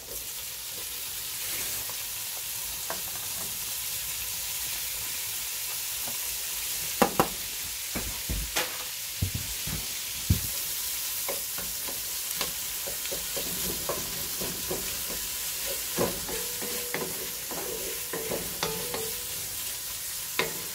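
Bacon lardons, onions and butter sizzling steadily in a cast-iron Dutch oven, with a wooden spatula knocking and scraping against the pot from about seven seconds in.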